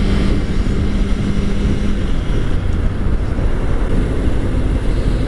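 Wind rushing over a helmet microphone on a moving motorcycle, with a steady engine drone underneath; a steady hum holds for about the first two seconds, then fades into the noise.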